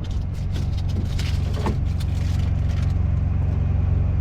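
Heavy truck's diesel engine idling steadily, with a few light clicks and knocks in the first two seconds.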